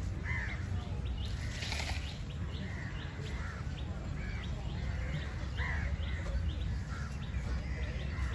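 Crows cawing again and again, with short high chirps from smaller birds, over a steady low rumble.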